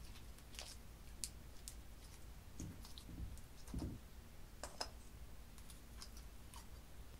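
Faint, scattered small clicks and a few soft low thumps as hands work glittery slime and press it down onto a bed of white slime. Light clicks from a small plastic glitter jar being handled near the end.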